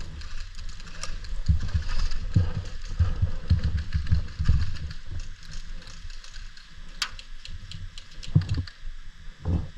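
Footsteps thudding unevenly, a few a second, with gear rustling and small clicks; one sharper click about 7 seconds in.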